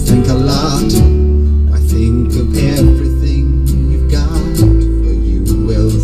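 Music played loud on a car stereo and heard inside the cabin, led by heavy sustained bass notes from a Rockford Fosgate T1S1-12 12-inch subwoofer that change pitch every second or two, under a beat with crisp cymbal hits.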